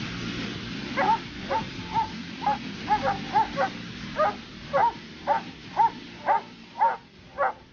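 Dobermanns barking in a steady string of short barks, about two a second, at a helper who is teasing them with a bite pillow during protection work.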